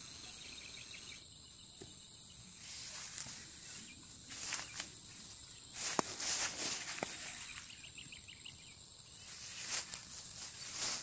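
Insects chirring steadily at a high pitch, with short repeated chirps, and brief rustles and snaps of plants being brushed while walking through leafy chili bushes.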